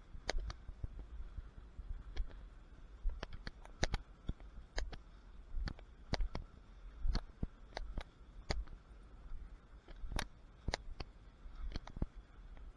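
Footsteps through tall dry grass: irregular sharp crackles of stems brushing and snapping, a little under two a second, over a low wind rumble on the microphone.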